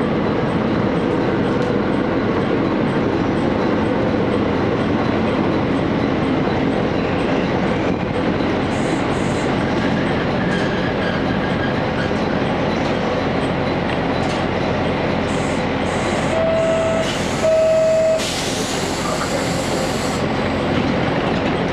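Cabin noise of a KiHa 31 diesel railcar easing into a station stop: steady engine and running noise. About three-quarters of the way in, as it halts, come two short beeps, then a couple of seconds of air hiss.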